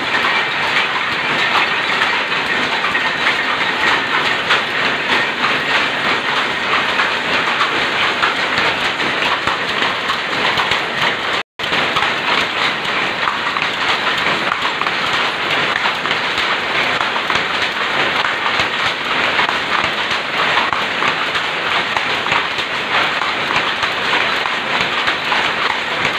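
A power loom converted from shuttle to rapier weaving, running at full speed: a loud, fast, steady clatter from the beating sley and rapier drive. The sound breaks off for an instant about halfway.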